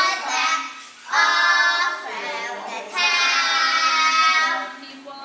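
Young children singing together, holding two long notes.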